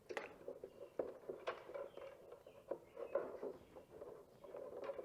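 Irregular scratching, rustling and light clicks of hands working on a rear brake caliper and its small parts.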